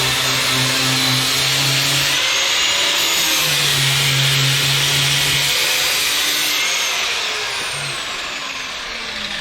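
Electric power drill running continuously under load, easing off slightly near the end.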